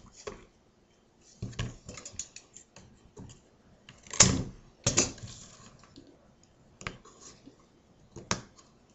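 Scissors snipping through flat reed basket stakes, with the reed clicking and rustling as stakes are bent and tucked into the weaving. A few scattered sharp clicks; the loudest two come about four and five seconds in.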